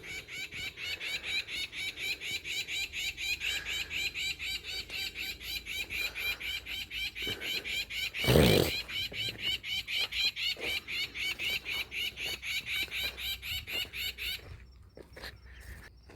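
A small bird repeating one high chirp about three or four times a second, evenly and without a break, stopping shortly before the end. A brief loud rush of noise cuts across it about halfway through.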